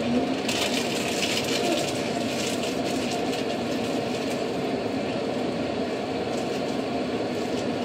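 Scissors cutting through thick hair at the back of the head, a crisp crackling crunch for the first few seconds. Under it runs a steady rushing background noise.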